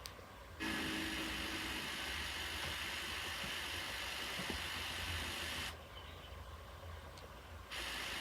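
VHS tape hiss with a low hum on a blank stretch of the tape. The hiss comes up about half a second in, dips away for about two seconds, then returns.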